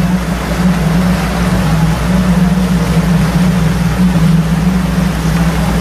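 Motorboat engine running steadily and loudly: a constant low hum under a broad rushing noise.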